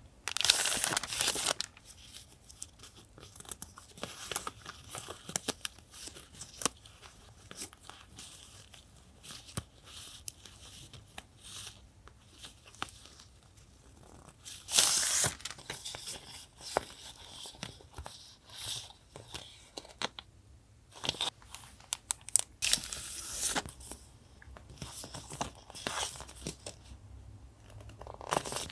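Paper and packaging being handled close up: crinkling and small taps throughout, with three louder stretches of tearing, at the start, about halfway through, and near the end.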